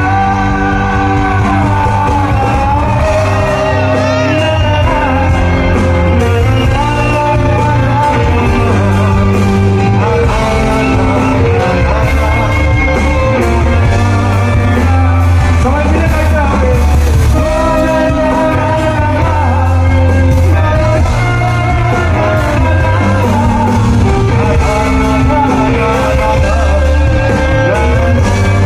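Live Bengali rock band playing loud through the PA, a lead vocalist singing over drums, bass and electric guitar.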